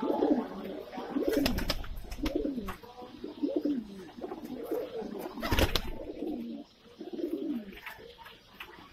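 A flock of Indian high-flyer pigeons cooing, one low swooping coo after another with calls overlapping. A single sharp knock cuts through about halfway.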